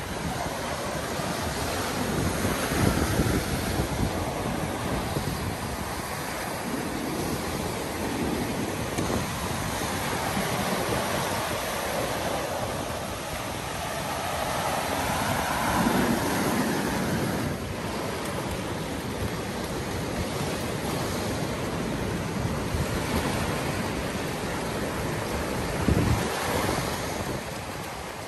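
Sea surf: waves breaking and washing over the shore in a steady rush, swelling louder every few seconds as each wave comes in.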